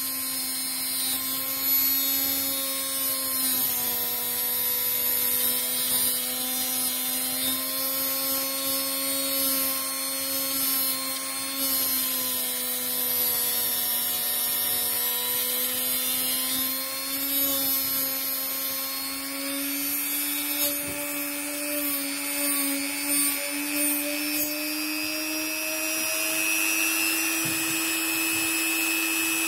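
Dremel rotary tool running at high speed, its abrasive disc grinding a hardened steel hexagonal screwdriver bit with a steady high-pitched motor whine and a hiss of grinding. In the last few seconds the grinding hiss fades and the motor's pitch rises slightly as the disc runs free of the bit.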